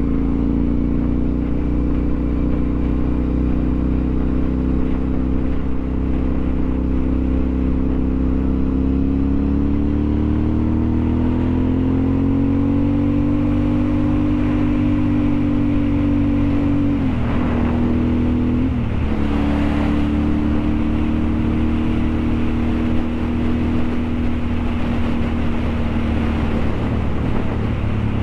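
A motor vehicle's engine running on the move over a heavy low rumble. Its note climbs slowly, dips sharply twice around seventeen to nineteen seconds in, and then holds steady at a slightly lower pitch.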